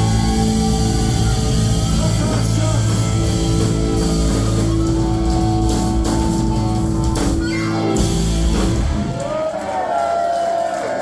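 Live rock band playing with electric guitars and drums, with some singing, the song ending about nine seconds in. Guitars and voices ring on as the bass and drums stop.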